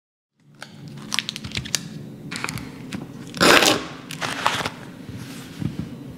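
Plastic sausage packaging crinkling and crackling as it is slit open with a knife on a wooden cutting board and the sausages are pushed out. The loudest moment is a short, sharp rip of the plastic about three and a half seconds in. A low steady hum runs underneath.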